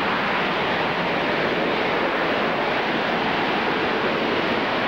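Harrier jump jet hovering, its Rolls-Royce Pegasus vectored-thrust engine giving a steady, even jet rush with no rise or fall.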